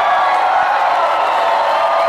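Rock-concert audience cheering and whooping as a song ends, with a held note still ringing underneath.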